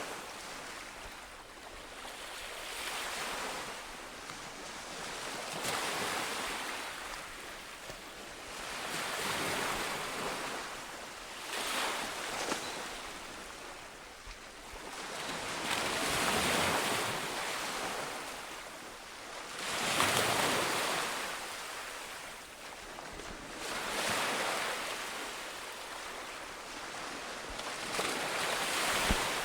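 Ocean waves breaking and washing on a shore, swelling and fading every three to four seconds, the loudest about twenty seconds in.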